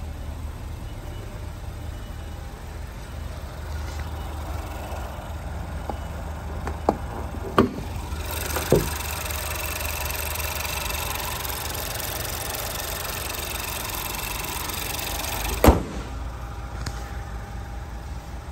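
Ford Focus 1.0-litre turbocharged three-cylinder engine idling steadily, heard more fully while the hood is up. A few clicks and knocks come around seven to nine seconds in as the hood is raised. A single loud thump about sixteen seconds in is the hood being shut.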